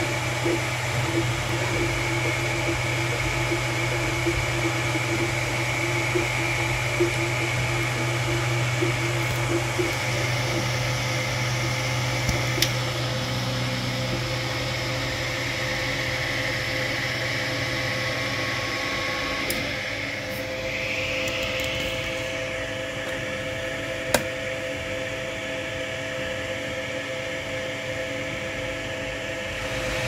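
Desktop 3D printer running while printing a plastic knob: steady fan whir with motor hum and tones. A low hum drops out about two-thirds of the way through, and there are a couple of sharp clicks.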